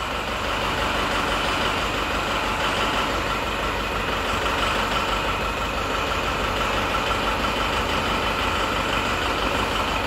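Tata 407's four-cylinder diesel engine idling steadily, with a faint steady high whine over the rumble, while the power steering is worked.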